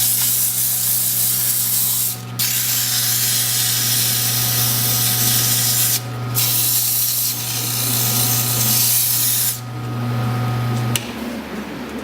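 CNC router cutting wood: a steady machine hum under a loud hissing cut that breaks off briefly twice and stops near the end. The machine then shuts off with a click about eleven seconds in.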